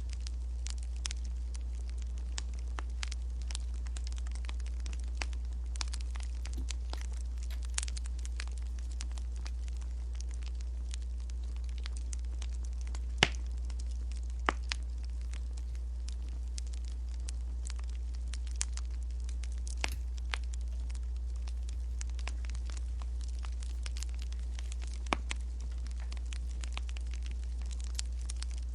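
Wood fire crackling: irregular sharp pops and snaps over a steady low rumble, with two louder snaps about halfway through.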